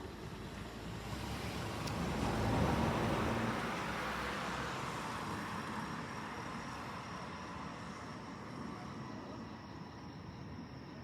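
A vehicle passing close by: the sound swells to a peak about two and a half seconds in, then fades away slowly.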